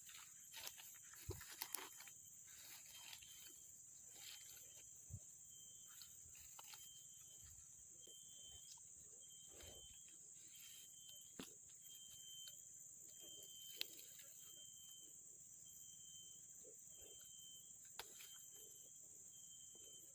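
Faint outdoor ambience: a steady high-pitched hiss with a short high note repeating about once a second, and scattered small clicks and knocks.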